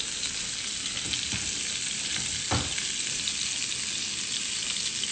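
Swordfish pieces sizzling steadily in hot oil in a frying pan, with one faint tap about two and a half seconds in.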